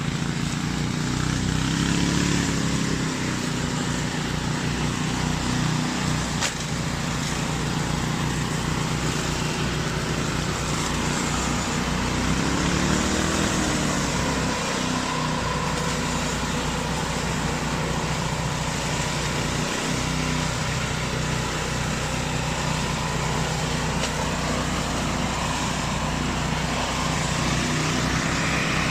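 Remote-controlled flail mower running steadily, its engine note wavering in pitch briefly a couple of times.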